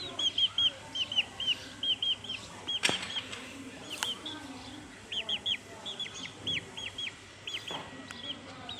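Small bird chirping rapidly and repeatedly in short high hooked notes, several a second, thinning out in the second half. Two sharp clicks, about three and four seconds in.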